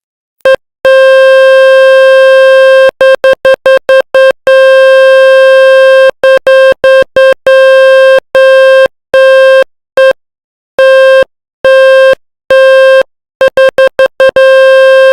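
Speaker dust-cleaning test sound: a loud, buzzy synthesized tone at one mid pitch, switched on and off in an uneven pattern of quick beeps and longer holds of up to about two seconds.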